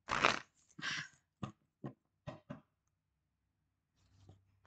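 Tarot cards being shuffled and handled: two short rustling bursts, followed by four light snaps or taps of the cards.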